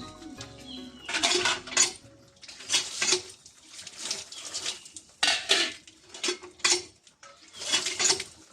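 Metal pots, plates and utensils clattering and clanking as they are handled, in about six separate bursts.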